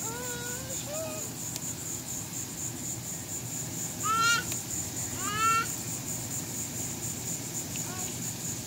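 Steady high-pitched chirring of insects. Twice near the middle, about a second apart, a short loud cry rises and falls; fainter pitched calls come at the start.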